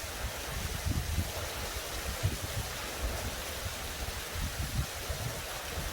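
Steady outdoor rushing noise, with irregular low rumbles of wind buffeting the microphone.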